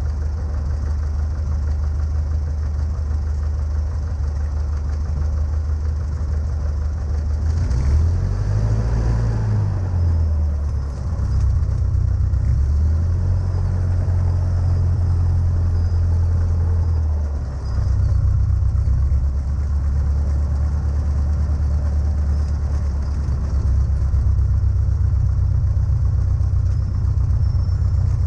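Cessna 152's four-cylinder Lycoming engine running at low, near-idle power while taxiing, its pitch rising and falling briefly about eight seconds in and stepping up and down a few more times as the throttle is moved.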